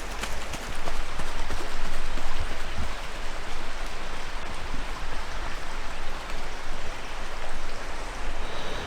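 Steady rushing of running water from a swollen, flood-high stream.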